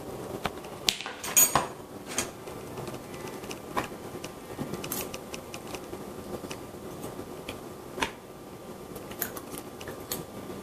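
Scattered light clicks and taps of small objects being handled on a hard surface, like dishes or a plate, the loudest about a second and a half in.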